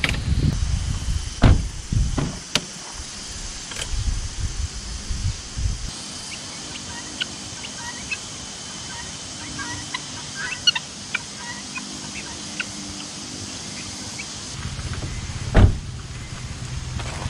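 Wind buffeting the microphone with a few sharp knocks as a wooden folding stool is set out on gravel. Then a quieter stretch of scattered short calls from fowl, and near the end the wind again with one loud thump.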